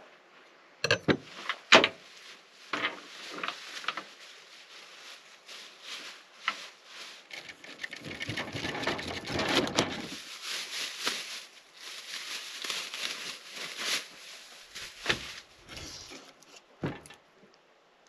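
A few sharp clicks and knocks, then a knife sawing through the rind and crown of a whole pineapple on a wooden cutting board: a dense rasping crunch for about six seconds, with more knocks of knife and fruit on the board near the end.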